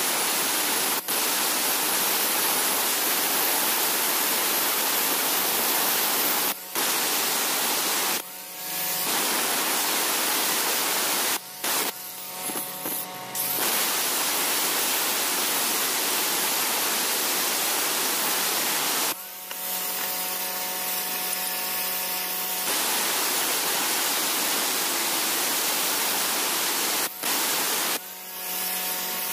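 Electric angle grinder grinding hard river stone: a loud, harsh hiss as the abrasive disc bites into the stone mortar. Several times the disc lifts off, once for about three seconds around twenty seconds in, and the grinder's motor is heard whining on its own.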